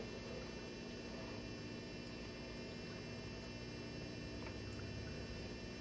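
Faint steady electrical hum with a thin high whine, unchanging throughout.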